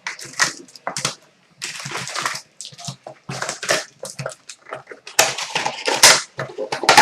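Trading card pack wrappers crinkling and tearing as packs are opened, in irregular crackly bursts with short pauses between them.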